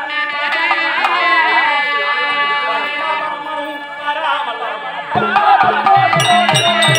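Live Therukoothu folk-theatre music: a voice singing over steady held notes, with hand-drum strokes joining about five seconds in and sharp cymbal-like clicks near the end.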